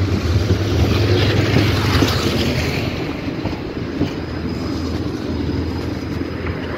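71-623-02 low-floor tram rolling past at close range into the stop, a low steady hum with wheel and running-gear rumble. It is loudest in the first few seconds as the front passes, and a faint high whine joins about four seconds in.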